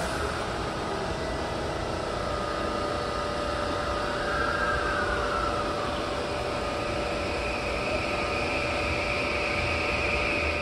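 Steady hum and hiss of an underground railway station, with a couple of steady tones running through it. A higher whine comes in about halfway and holds for the last few seconds.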